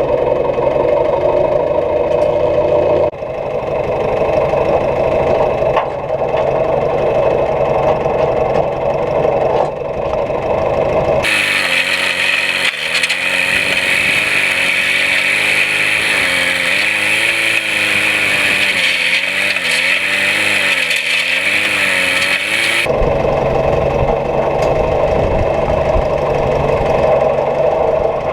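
Farm machinery engines running steadily. About 11 seconds in, the sound switches abruptly to a different machine whose engine note wavers up and down under a strong high hiss, then switches back about 23 seconds in.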